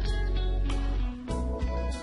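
Background music with guitar over a steady beat and a strong bass line.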